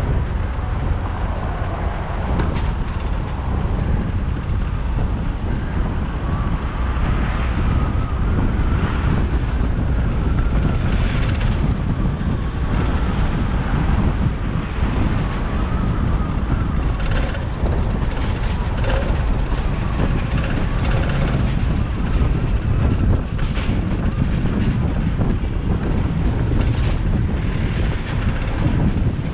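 Vehicle driving through city streets, with a steady low rumble of road and engine noise and wind buffeting the microphone.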